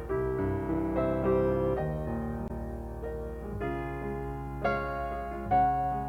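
Slow, gentle jazz piano: soft chords struck and left ringing, with a few chords struck harder in the second half.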